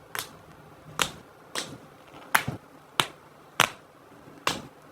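About seven short, sharp snaps at fairly even spacing, roughly one every 0.6 to 0.8 seconds, from packets of makeup sponges being handled and opened.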